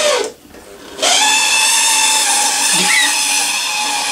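Ringfield motor in a Hornby 00 gauge model locomotive running on the track with a loud, high whine. It winds down and stops just after the start, then starts up again about a second in and runs steadily. The noise is a habit of Ringfield motors, and it is why this one is due for a CD drive motor upgrade.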